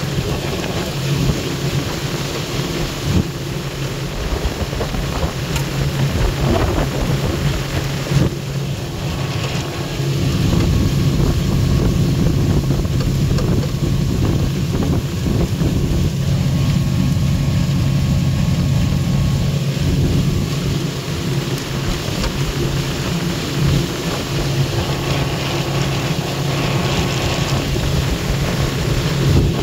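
Planing motorboat's engine running steadily at speed, a low hum under the rush of wind and water, getting louder about ten seconds in.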